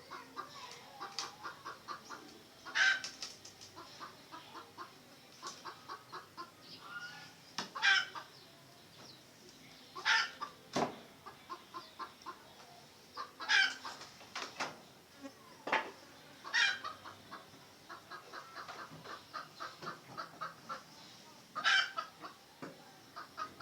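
Red junglefowl clucking in runs of short quick notes, with a louder, higher call breaking in every few seconds. Two sharp knocks sound near the middle.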